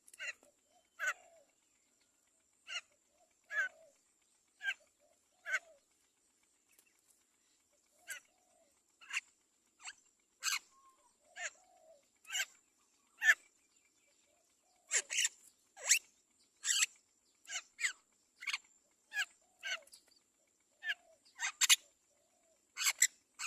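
Mynas at the nest giving short, sharp, raspy calls over and over, about one a second at first and quickening to about two a second in the second half.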